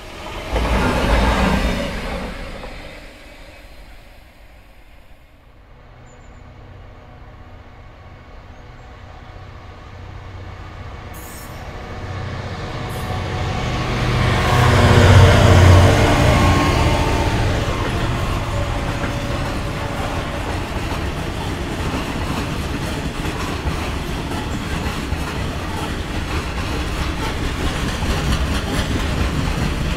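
A British Rail Class 66 diesel freight locomotive approaches and passes close, its two-stroke EMD engine running loudest about halfway through. Behind it a long train of loaded bogie hopper wagons rolls by, wheels clattering steadily over the rail joints. A brief loud pass from another Class 66 comes right at the start.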